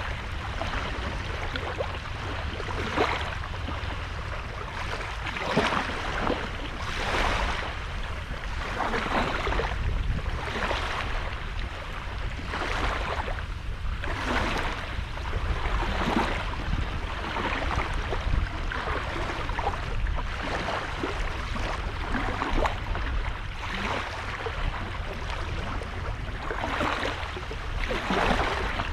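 Small sea waves washing onto the beach, breaking one after another every second or two, over a steady low rumble.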